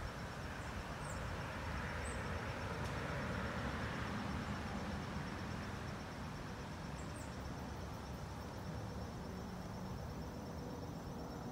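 Outdoor ambience: a steady rushing background noise that swells a little a few seconds in, with insects trilling in a high, fast, even pulse and a few brief, faint high chirps.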